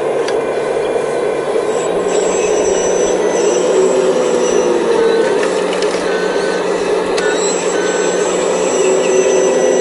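Hydraulic excavator working steadily as it digs, its pump whining, with thin high whines that step up and down in pitch as the controls are worked.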